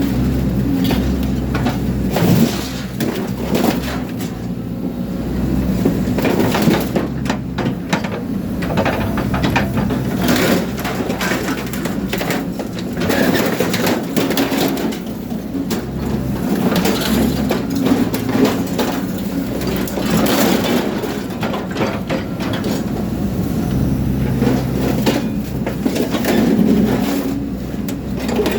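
A machine running with a steady low hum while material is crunched and cracked in irregular bursts, as when something is being chopped up or crushed.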